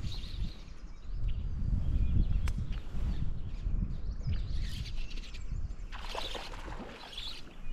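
Songbirds chirping over the gusty rumble of wind on the microphone, with a busier run of chirps near the end.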